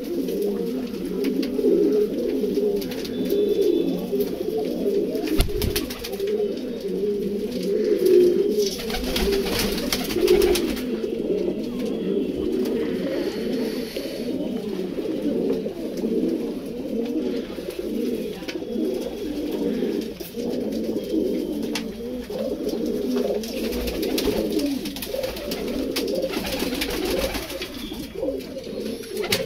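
A loft full of domestic Banarasi pigeons cooing without a break, many birds overlapping into one continuous low burble.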